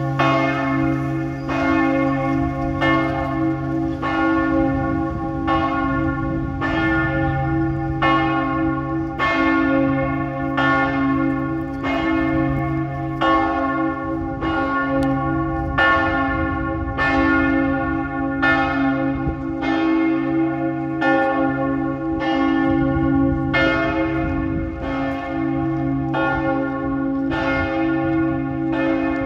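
The bells of St Mark's Campanile tolling. A stroke comes about every second and a half, each one ringing on over a deep hum that carries on throughout.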